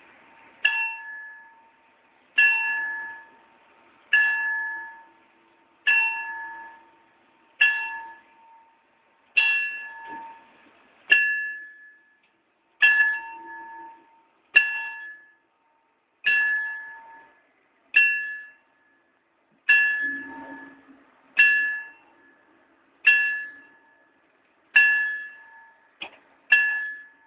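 Level crossing warning bell striking single strokes about every 1.7 seconds, each a bright ring that dies away, the crossing's warning that a train is coming. Two strokes come in quick succession near the end, and then the ringing stops.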